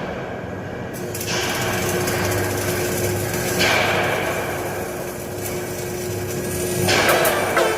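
Metalworking on a galvanized steel pipe: harsh hissing tool noise that starts abruptly several times and fades off in its upper part, with a steady hum from about a second in.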